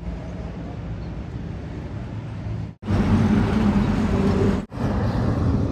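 Heavy road traffic rumbling, with trucks passing, in short clips cut together abruptly; the middle stretch, from about three seconds in, is the loudest.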